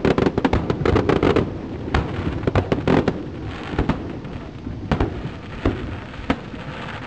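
Aerial fireworks shells bursting: a rapid volley of bangs in the first second and a half, then scattered single booms every second or so.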